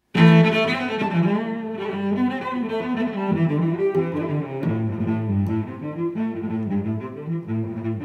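Background music led by low bowed strings, cello and double bass, in a busy line of short notes, starting abruptly just after the start.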